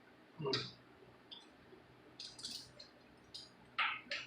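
Scattered light clicks and clinks of metal hand tools being handled, as sockets are picked through for the right size.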